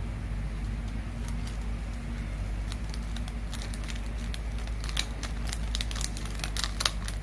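Small foil-and-paper sachet of pH 4.01 calibration buffer powder being torn open and crinkled between the fingers, sharp crackles coming thicker over the second half, over a steady low hum.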